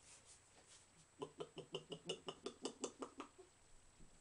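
A quick run of about a dozen gulps from a person drinking from a can, about six a second for two seconds.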